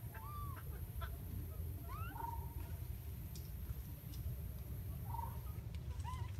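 Short whistled animal calls, each a quick rising or arched note, sometimes followed by a brief flat one, repeated a few times a couple of seconds apart over a steady low rumble.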